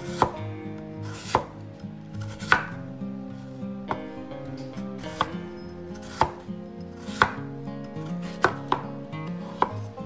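Kitchen knife chopping peeled raw potatoes on a wooden cutting board: about ten sharp knocks, roughly one a second, two of them close together near the end.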